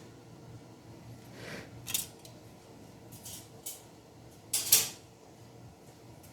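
Kitchen handling sounds: a few short clicks and scrapes of dishes or utensils being moved, the loudest a brief scrape just before five seconds in, over a faint steady hum.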